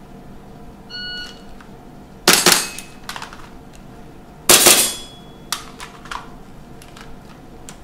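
An electronic shot timer beeps once. About a second later an airsoft rifle fires two quick shots, and about two seconds after that an airsoft pistol fires two more. A few light clicks and knocks of handled gear follow.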